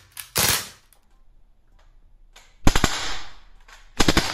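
Crosman A4-P CO2 air gun firing: a single sharp shot about half a second in, then two quick strings of several shots, around three and four seconds in.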